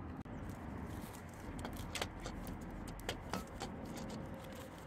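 Faint scattered clicks and light rustling as wiring and a plastic connector are handled and pushed aside.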